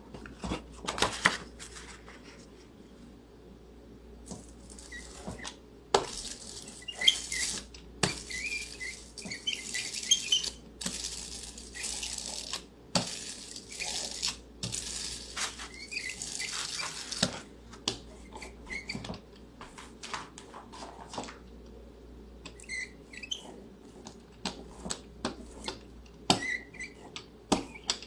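A hand ink brayer rolling back and forth over an inked, etched aluminum-foil lithography plate. It gives repeated sticky hissing strokes of one to four seconds each, longest and strongest in the middle, with scattered clicks and light squeaks as the roller is lifted and set down.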